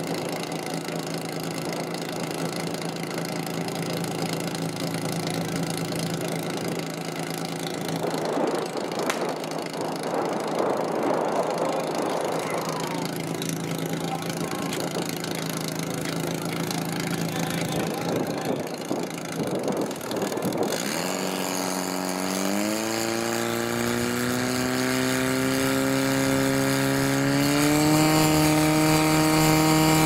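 Portable fire pump's engine running steadily, then throttled up in steps to high revs and held there as it drives water through the attack hoses. A rush of noise about a third of the way in.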